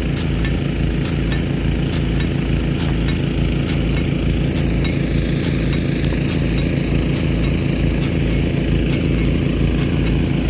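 Nelson P150 big gun sprinkler throwing its water jet with a steady hiss, over an engine running steadily with an even, regular pulse.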